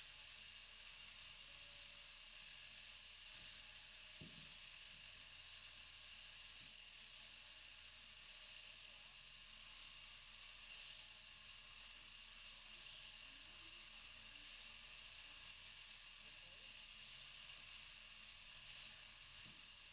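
Sheep-shearing handpiece on an overhead-drive shearing machine running steadily while it cuts through the fleece: a faint, even whirring hiss over a low motor hum, with one short low thump about four seconds in.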